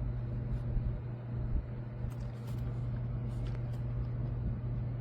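Steady low hum with a few faint, scattered clicks of keyboard keys being pressed.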